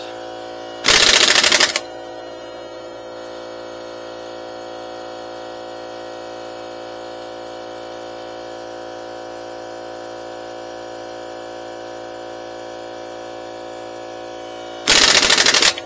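Air impact wrench hammering on a wheel's lug nut in two short bursts, about a second in and near the end. Underneath, the motor of a DEWALT FLEXVOLT 60V cordless air compressor runs steadily, recharging its tank.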